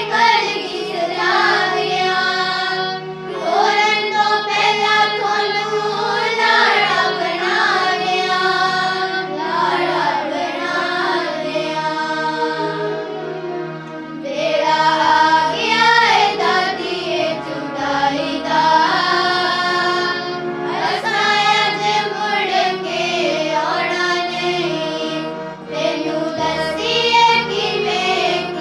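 A group of young girls singing a devotional song together over a steady instrumental drone, with deeper bass notes coming in about halfway through and again near the end.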